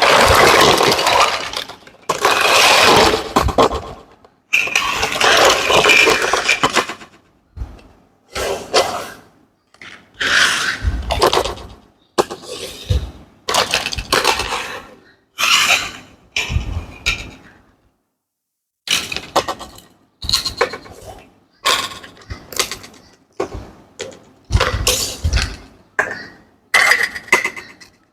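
Small plastic toy pieces and their packaging being handled. First comes several seconds of continuous crinkling and rustling, then short bursts of clicking and clinking about once a second, a few with a light knock as a piece is set down.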